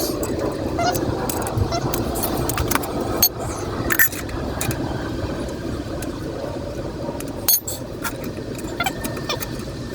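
Scattered metal clinks and scrapes of tools and motorcycle drive chain being handled during a chain change, over a steady low background rumble.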